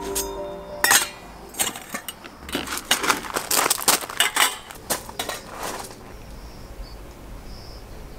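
Metal mosquito-coil cases clinking and knocking as they are handled and set down on gravel: a quick, irregular run of light metallic clinks that stops about two seconds before the end.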